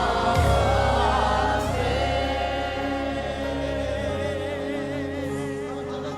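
Gospel worship music: a choir and band hold a long sustained chord, voices wavering with vibrato, slowly fading. The bass drops out about four seconds in.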